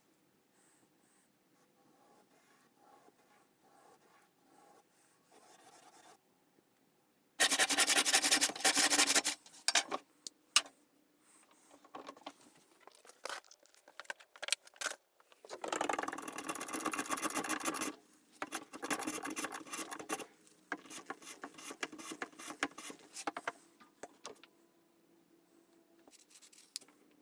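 Hand work on the knife: rasping and scraping in spells of a few seconds, with softer scratching between them.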